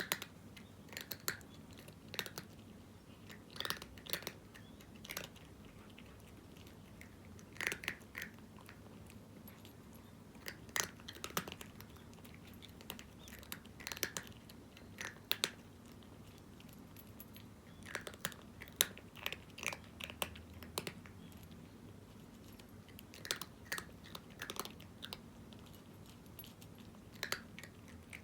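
A cat crunching dry kibble: short clusters of crisp bites and chews, with pauses of a second or more between mouthfuls.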